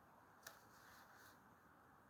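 Near silence: faint steady background hiss with a single sharp click about half a second in.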